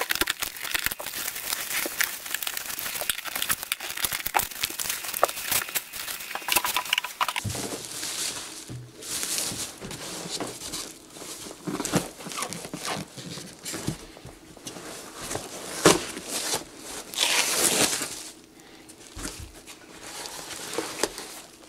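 Clear plastic sheeting crinkling and rustling as it is handled and pulled away from a motorcycle seat's foam and pan. Dense, fast crackling for the first several seconds gives way to slower, separate rustles.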